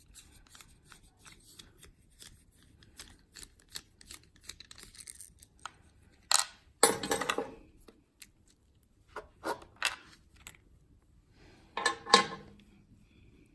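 Small metallic clicks and light scraping from handling the opened American Lock 1100 padlock and its tools, with a few louder metal clunks and clinks about six to seven seconds in, three sharper clicks around nine to ten seconds, and another clunk near the end.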